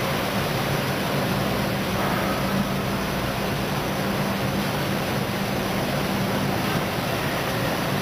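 Steady, even whir with a low hum from a running ERSA Versaflow selective soldering machine, its fans and convection preheat blowers running.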